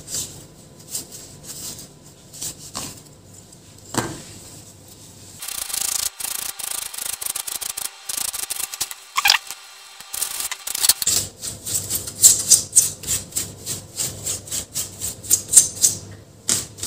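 Cleaning a laptop cooling fan by hand. For the first few seconds a cloth gives a soft wiping and scuffing on the fan housing. From about five seconds in, a toothbrush scrubs the plastic impeller blades in rapid scratchy strokes, and the strokes get louder and faster near the end.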